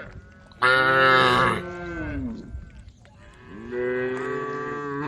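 Cattle mooing: two long calls. The first starts suddenly and loud, then falls in pitch as it fades; the second begins about three and a half seconds in.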